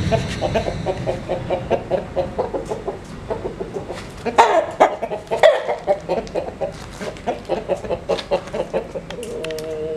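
Chickens clucking in a fast, steady run of about five or six clucks a second, with two louder, sharper squawks about halfway through and a short held call near the end.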